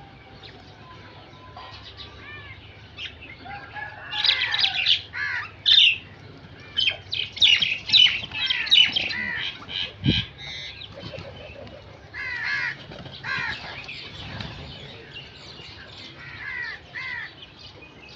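Crows cawing, many short calls overlapping in quick runs like a calling flock, with a single dull thump about ten seconds in.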